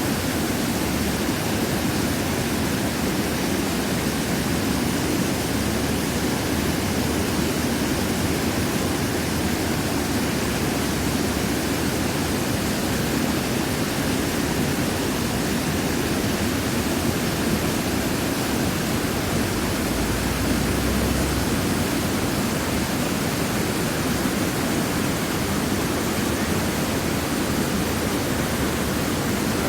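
Steady rush of falling water, an even hiss that does not change.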